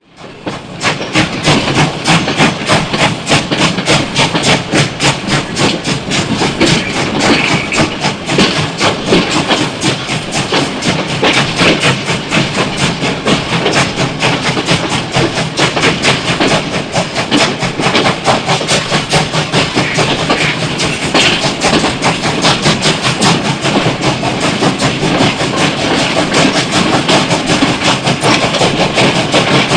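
Train running, with a fast, even rhythmic clatter that fades in over the first second and holds steady.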